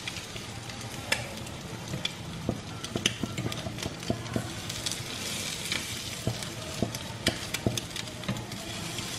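Egg-coated bread rolls sizzling in butter in a nonstick frying pan, with many light, sharp clicks of a fork tapping the pan as the rolls are turned over.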